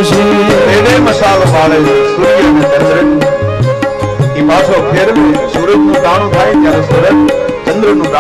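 Devotional bhajan accompaniment between sung lines: tabla playing a steady rhythm under held melody notes from an accompanying instrument.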